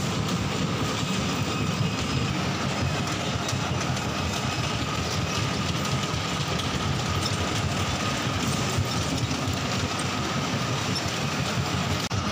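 Bumper cars running on the rink: a steady, loud rumble of rolling cars and their electric drive, with a thin constant whine above it.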